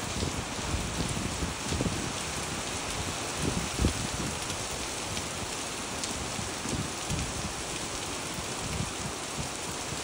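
Rain falling onto wet, puddled ground: a steady, dense hiss of splashing drops, with irregular low thuds underneath.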